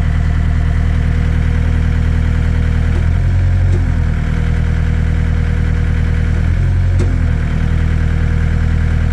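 Heavy-equipment diesel engine idling steadily. Its low note shifts briefly twice, about three seconds in and again about seven seconds in, each time with a click.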